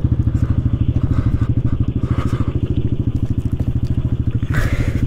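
Yamaha 700-class ATV's single-cylinder engine idling with an even, rapid putter. There is a short crunch about four and a half seconds in.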